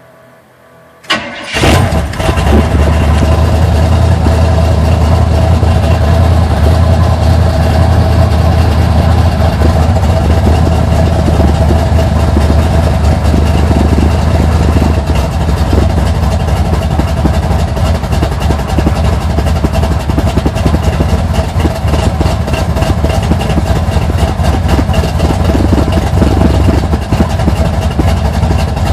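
Junkyard 350 small-block V8 with a Summit K1107 hydraulic flat-tappet cam fires up cold about a second in, then settles into a loud, rough idle through Flowtech headers and Thrush turbo mufflers. The sound is distorted by a clipping microphone.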